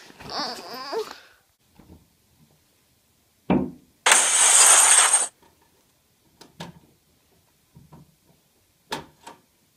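A thump, then a loud crash of noise lasting about a second that starts and cuts off abruptly, followed by a few faint knocks near the end.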